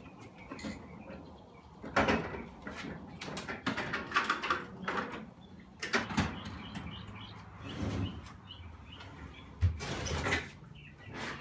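A series of irregular knocks and clatters, roughly every two seconds, the sharpest about three-quarters of the way through: hard objects being handled and set down.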